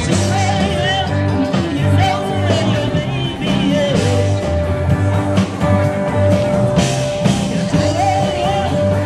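A blues band playing live, a steady bass line beneath, with one long held high note in the second half.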